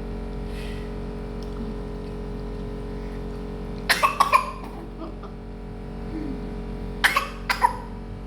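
A person coughing in two short fits, about four coughs a little before halfway and three more near the end, over a steady background hum.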